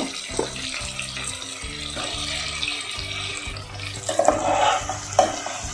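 Hot oil sizzling steadily in a pot as fried potato chunks are added to frying tomatoes. From about four seconds in a spatula knocks and scrapes against the pot as it stirs.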